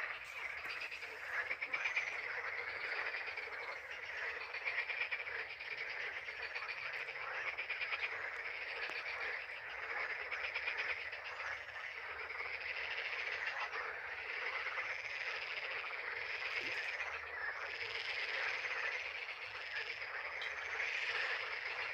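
A dense chorus of many frogs croaking at once, a steady wall of overlapping pulsed calls.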